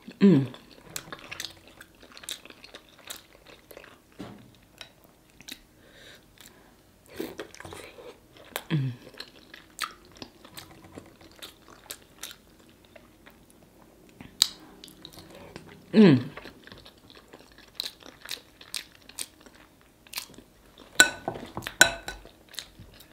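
Close-miked eating of a seafood boil: chewing, crunching and biting with wet, saucy mouth sounds. Three short falling hums come about 9 s apart.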